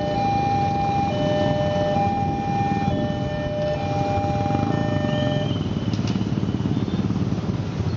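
Railway level-crossing warning alarm sounding a repeated two-tone electronic signal over the engines of a crowd of motorcycles waiting at the crossing. The alarm stops about five and a half seconds in, leaving the motorcycle engines and traffic.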